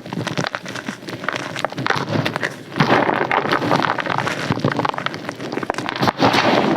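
Close-up crisp crunching and crackling, a dense run of small snaps, growing louder and fuller about three seconds in.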